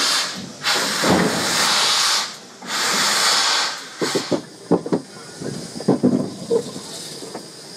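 Peckett saddle-tank steam locomotive moving slowly: three long steam hisses in quick succession, then a run of short clanks and knocks from the wheels and motion.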